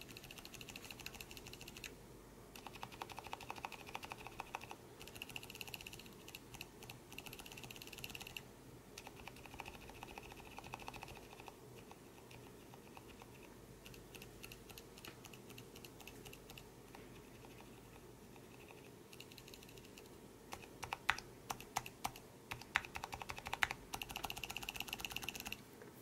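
Lubed silent mechanical keyboard switch, a Zilent v2 stem in a Cream housing, pressed over and over in quick runs of soft clicks with short pauses between. Near the end single presses come louder and sharper.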